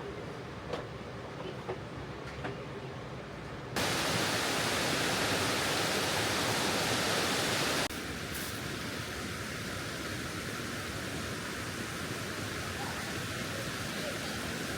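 Rushing water: a few faint clicks over a quiet background, then about four seconds in a loud, even rush of water starts abruptly. It stops suddenly a few seconds later and gives way to a steady, softer rush of water.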